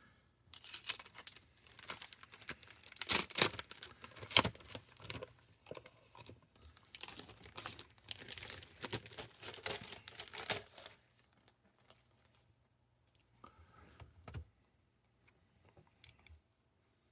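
Packaging being torn open and crinkled as a replacement laptop screen is unwrapped, a dense run of crackling for about eleven seconds. After that, only a few light taps and clicks.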